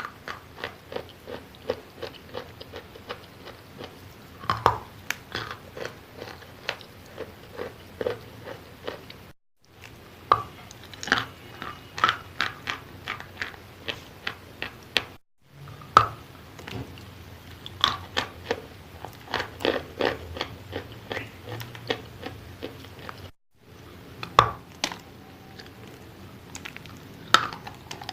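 Close-up crunching as a person bites and chews wet chalk: many sharp, irregular crunches. Three times the sound drops out abruptly for a fraction of a second.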